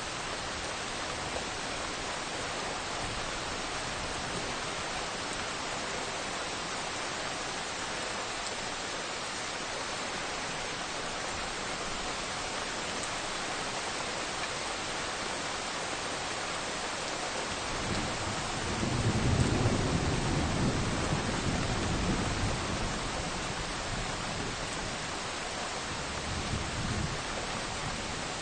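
Steady rain falling in a forest, an even hiss. About two thirds of the way through, a low rumble swells for several seconds and fades, with a smaller one near the end.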